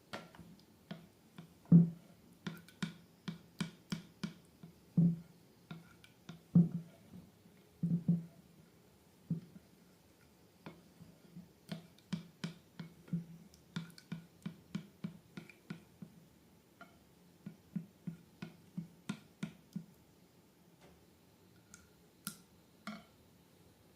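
Slime being worked by hand, giving an irregular run of short wet clicks and squelches, a couple a second, with brief lulls.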